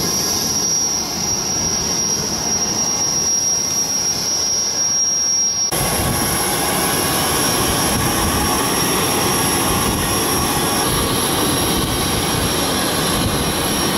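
Jet turbine whine over a loud, even rushing noise. About six seconds in the sound changes abruptly, the rush growing louder and the steady high whine jumping higher in pitch.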